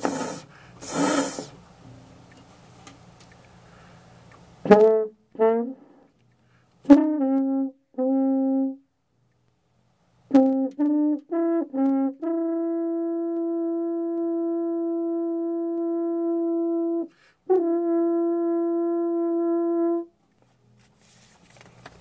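French horn played: a loud rush of breath noise at the start, then a few short notes, some sliding down into place, and finally two long steady held notes on the same pitch with a brief break between them.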